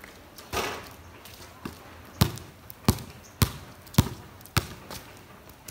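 A basketball bouncing on a wet concrete court, dribbled: five sharp bounces a little over half a second apart, starting about two seconds in, after a brief noisy rush near the start.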